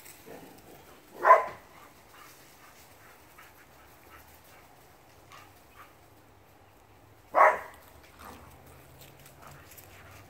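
A dog barks twice, single short barks about six seconds apart, with faint rustling between them.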